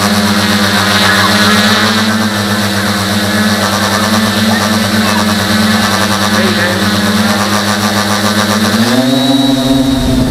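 Tricopter's electric motors and propellers whining steadily, heard from the camera on board the craft. About nine seconds in the pitch steps up as the throttle is raised and the craft climbs, then glides back down at the end.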